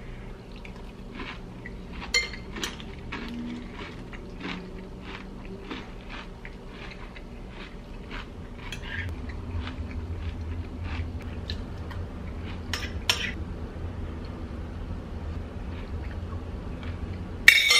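Metal spoon clinking and scraping against a ceramic bowl as cereal is eaten: light, irregular clinks every second or so, with one louder clink near the end.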